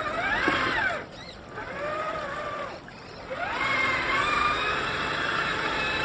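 Electric motors and geartrains of Traxxas TRX6 RC scale trucks whining, rising and falling in pitch as the throttle is worked, over splashing water while they drive through a stream. The whine drops away briefly twice, about a second in and about three seconds in.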